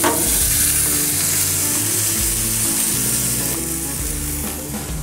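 Swordfish steaks sizzling on a gas grill's grate, a steady hiss. A metal spatula clicks against the grate at the very start as a steak is turned.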